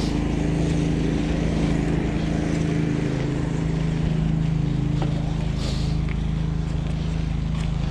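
A steady, motor-like hum holds one unchanging pitch under a continuous rushing noise.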